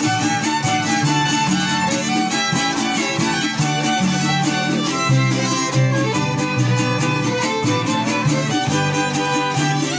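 A folk string ensemble playing a tune: two violins carry the melody over a large wooden harp plucking a moving bass line, with guitars.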